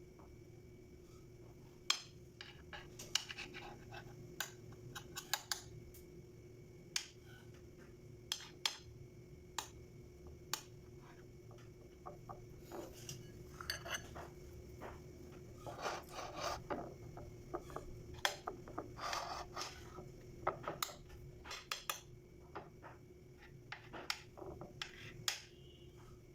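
Scattered light clinks, taps and short scrapes of kitchen utensils against dishes, irregular and thickest around the middle, over a faint steady hum.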